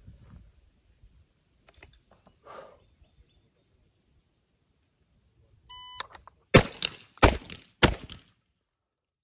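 An electronic shot timer gives one short start beep, then a Beretta 1301 semi-automatic 12-gauge shotgun fires three quick shots, the first just under a second after the beep and the next two about two-thirds of a second apart.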